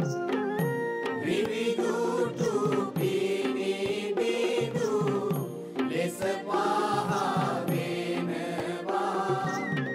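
Background music: a sung, chant-like voice over instruments with a steady percussion beat.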